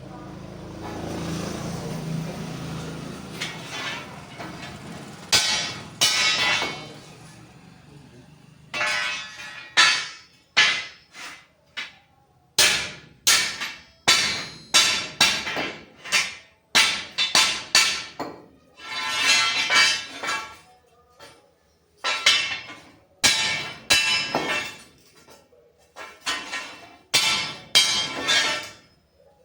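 Hammer blows on steel angle iron: a run of sharp, irregular metallic strikes with a ringing tail, about one or two a second, after a few seconds of steady noise at the start.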